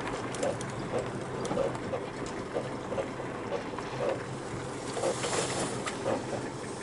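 Car engine running at low speed, a steady low hum, with faint short calls repeating about every half second.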